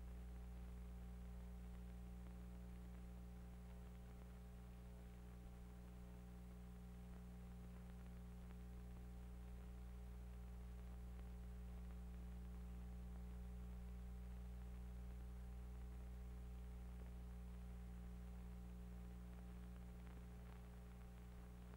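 Near silence apart from a faint, steady low electrical hum with light hiss, the background noise of an old archival film soundtrack with no speech or effects on it.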